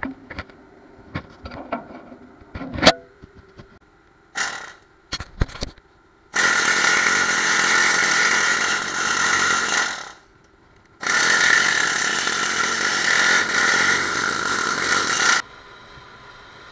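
Metal handling taps and clanks, then a loud power tool running in two spells of about four seconds each, with a short pause between them.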